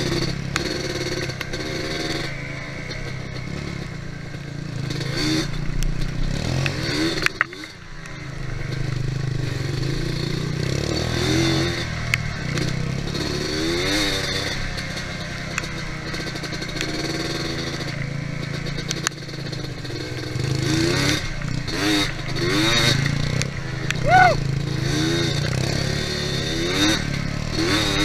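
ATV engine running under way, its pitch rising and falling again and again as the throttle is worked, with clattering and a sharp knock about seven seconds in.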